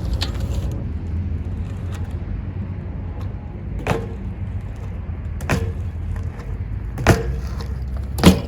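Wind buffeting the microphone with a steady low rumble, broken by four short, sharp clicks spread a second or two apart. The last click is the loudest.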